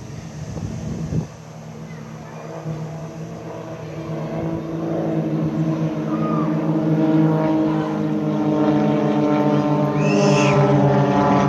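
Aircraft engine droning with a steady pitch, growing louder as it approaches. A brief high whistle about ten seconds in.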